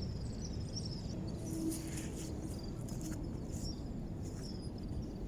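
Outdoor background: a steady low rumble with faint, high, thin chirping scattered through it.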